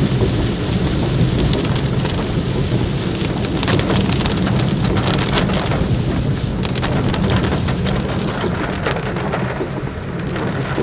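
Heavy rain drumming on a car's roof and windshield, heard from inside the car as a steady dense patter over a constant low rumble.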